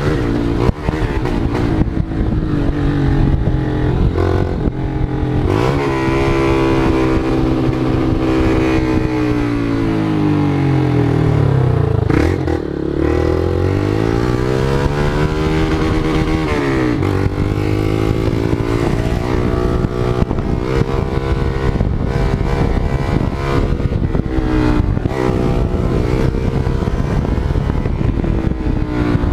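Motorcycle engine running loudly. Its pitch sinks and climbs back up between about ten and fourteen seconds in, with shorter dips and rises elsewhere.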